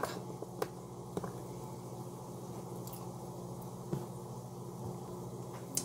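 A few light taps of diced potato and a kitchen knife on a wooden cutting board, spaced out over a few seconds, over a steady low hum.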